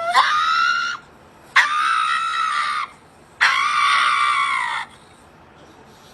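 Three long, high-pitched screams, each lasting about a second, with short pauses between them.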